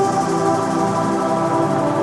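Background music: electronic ambient music of sustained, held chords.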